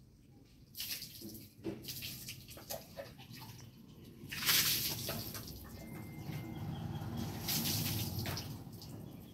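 Kittens suckling at their mother cat's teats: a run of small wet smacking and clicking sounds, with louder swells of noise about four and a half and eight seconds in.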